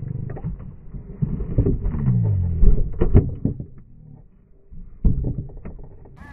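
Knocks and thumps against a plastic fishing kayak as a hand-held grunter thrashes and gets away, with a low falling groan about two seconds in.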